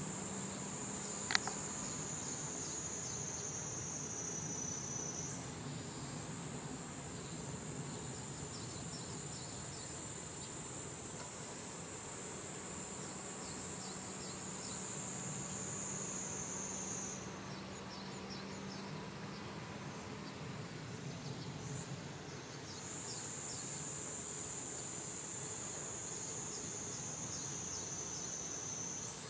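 An insect's high, thin, continuous song, its pitch sinking slowly and then jumping back up, pausing for a few seconds in the middle before starting again. A single sharp click stands out about a second in.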